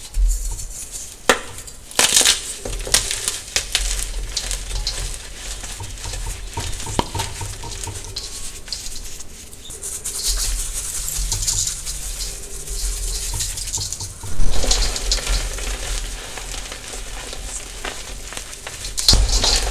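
Crunchy gym chalk being crushed: continuous fine crackling with sharp snaps, and louder crunches about 14 seconds in and again near the end.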